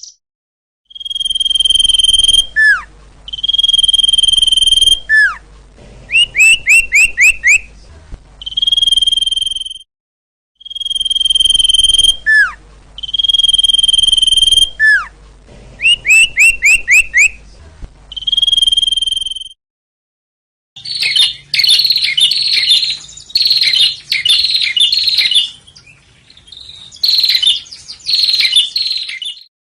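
Recorded songbird song played in a loop: long steady whistled notes, falling slurs and a quick run of about five chirps, repeated exactly twice with an abrupt cut to silence after each. After a short gap, a faster chattering song of rapid repeated notes follows.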